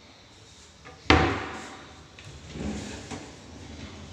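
A kitchen cabinet drawer bangs sharply about a second in, ringing briefly, followed by a few softer knocks.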